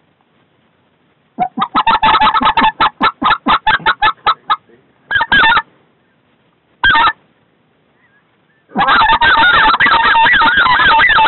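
Specklebelly (white-fronted goose) calls blown close by: a fast run of loud clucks starting about a second and a half in, two short yodels, then from near the end a continuous stretch of rapid clucking and yodeling, calling geese in to the decoys.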